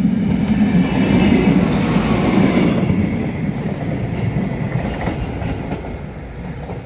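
Rail multi-purpose vehicle (MPV) passing by, its diesel engine running and its wheels clacking over rail joints, the sound fading steadily as it pulls away from about three seconds in.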